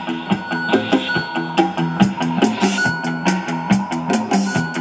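Music with a steady drum beat playing through the repaired Sony TA-AV411 amplifier and its speakers, sounding great on both channels now that its bad solder joints have been reworked.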